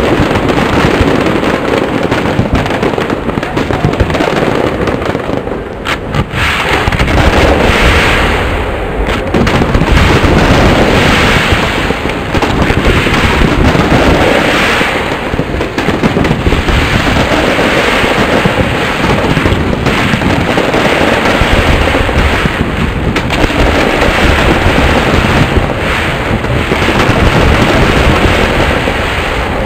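Aerial firework shells bursting in quick succession, the bangs overlapping into a continuous loud din, with short lulls about six and nine seconds in.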